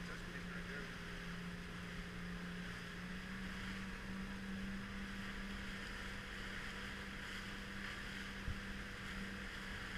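Small motorboat's engine running steadily at cruising speed, a constant hum, with wind and water rushing past the bow.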